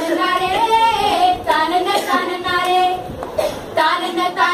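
A young voice singing a slow melody in short phrases, with held notes that bend up and down in pitch.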